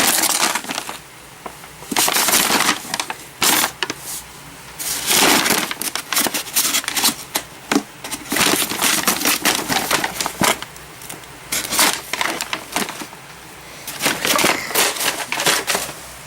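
Something being crushed and broken open by hand: irregular crackling and crunching in quick runs, with short pauses between them.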